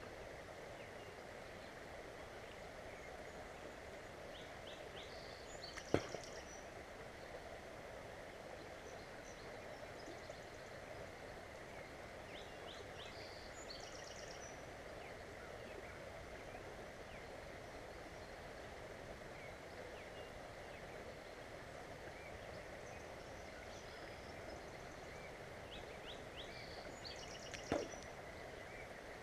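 Steady rush of flowing water, with small birds chirping now and then. Two sharp clicks stand out, one about six seconds in and one near the end.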